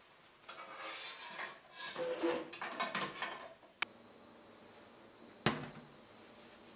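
Kitchen clatter of dishes and utensils being handled for about three seconds, then a sharp click, and a single knock near the end as a glass jam jar is set down on a stainless steel counter.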